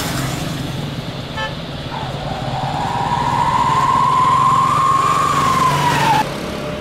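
Jet engines of a departing Boeing 777-300ER (GE90-115B turbofans) climbing out at take-off power: a steady low rumble under a whine that rises slightly and then falls away. The sound cuts off suddenly near the end.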